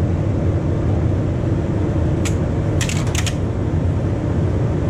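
Electrical contactors in the streetcar's under-car switch group snapping shut as the controller is worked: one sharp metallic click about two seconds in, then a quick run of four clicks just after, over a steady low rumble.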